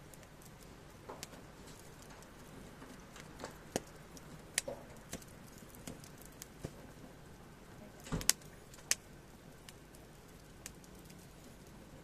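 Split firewood burning in a metal fire pit and crackling, with irregular sharp pops about a second apart. The loudest pops come in a short cluster just after eight seconds in.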